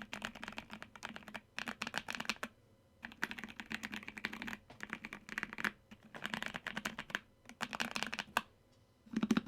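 Typing on a 60% mechanical keyboard fitted mostly with Akko Bittersweet tactile switches, O-rings and foam: rapid runs of key clicks in several bursts with brief pauses between them.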